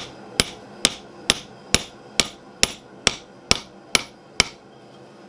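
Hammer blows on a steel drift, driving it to enlarge a hole in red-hot bar stock on the anvil: about eleven steady strikes, a little over two a second, stopping near the end.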